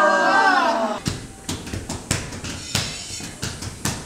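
Several voices sing a wavering held chord that breaks off about a second in. Then come irregular knocks and taps of hands slapping flat against glass window panes, about two or three a second.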